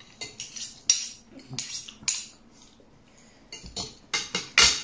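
Metal spoon and fork clinking and scraping against a plate while eating: a run of short, sharp strokes, the loudest near the end.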